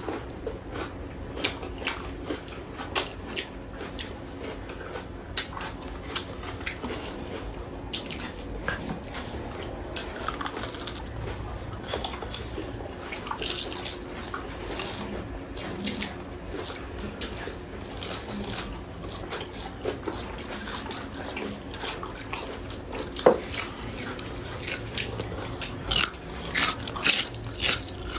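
Close-up eating sounds of people chewing and biting into chicken: irregular wet smacks and small clicks throughout, over a faint steady hum.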